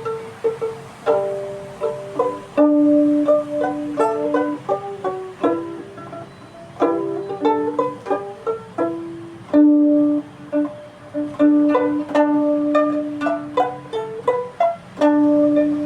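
Solo bowed string instrument playing a slow melody that mixes short plucked notes, which ring and die away, with longer held notes.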